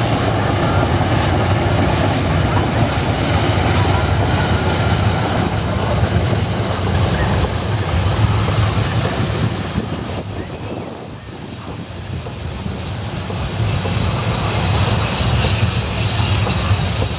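CC 206 (GE CM20EMP) diesel-electric locomotive and its train of tarpaulin-covered cement wagons passing close by: a steady, loud rumble of engine and wheels rolling over the rails. The rumble dips about two-thirds of the way through, then builds again as more wagons roll past.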